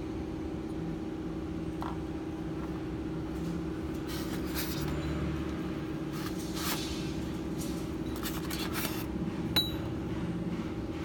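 Fishing line and hooks handled and pulled while a knot is tied, giving short scratchy rustles, over a steady background hum. One sharp click near the end.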